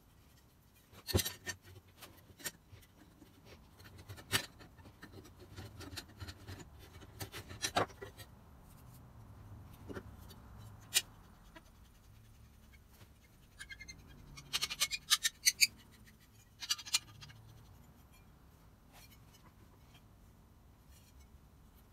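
Metal parts of a compass plane clinking, clicking and scraping as it is taken apart by hand, in scattered knocks with a quick run of clinks about fifteen seconds in.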